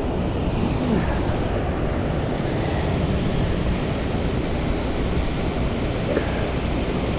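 Steady wind rushing and buffeting the microphone.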